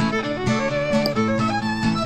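Background music: a bowed string melody over plucked strings with a steady beat.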